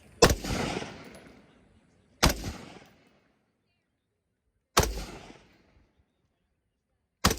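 Four gunshots fired at an even, deliberate pace about two and a half seconds apart. Each sharp crack is followed by an echo that fades over about a second.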